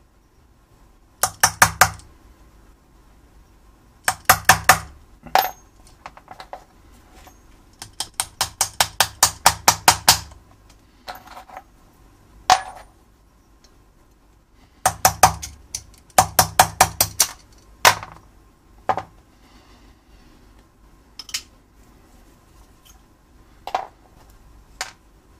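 Quick runs of light hammer taps on the steel lock of an antique flintlock-era pocket pistol, about five sharp taps a second, stopping and starting several times. Near the end come a few single metallic clinks.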